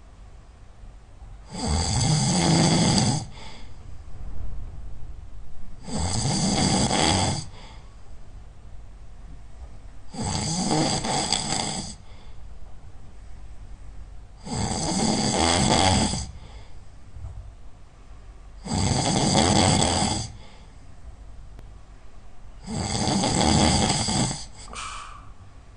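A person snoring loudly in their sleep: six long snores about every four seconds, each lasting about a second and a half, with quieter breathing between them. A brief high note follows right after the last snore.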